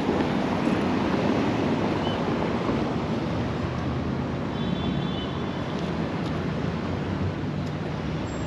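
Steady street traffic noise from cars passing on a wide avenue, mixed with wind rumbling on the microphone.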